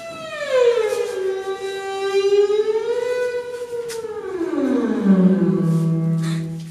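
One long, unbroken ghostly wail. It slides down in pitch, lifts slightly, then drops low and holds before cutting off near the end.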